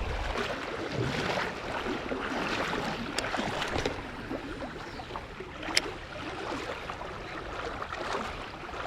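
River water rushing and splashing in a steady wash, with two sharp clicks about three and six seconds in.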